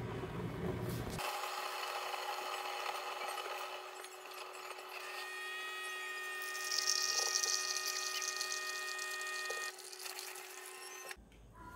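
Keurig K-Duo Plus single-serve coffee maker running a brew cycle, played sped up: a steady, high-pitched machine whine with several held tones as coffee streams into the mug. It cuts off shortly before the end.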